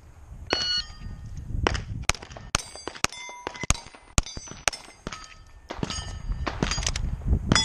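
A rapid string of pistol shots fired at steel targets, each hit answered by the bright ring of the struck steel plate: a timed Steel Challenge string.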